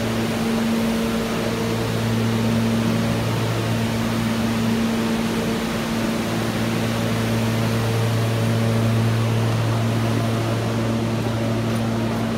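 A New York City subway car standing at the platform with its doors open: a steady low hum with a few higher steady tones over an even, fan-like hiss.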